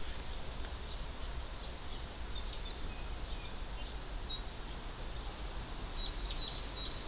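Outdoor breeze ambience: steady wind rumble on the microphone, with faint short bird chirps now and then.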